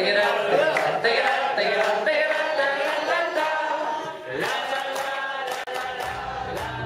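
A roomful of people chanting together in unison, with scattered hand-clapping. Recorded music comes in near the end.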